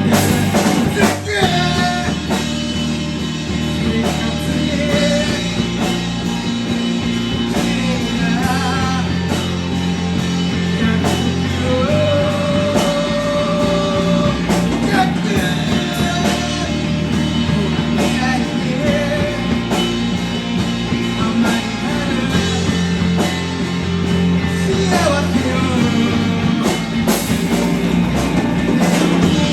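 Rock band playing live, with guitar and a voice singing.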